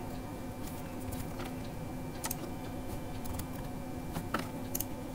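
Sparse computer keyboard keystrokes, a few scattered clicks, over a steady low hum.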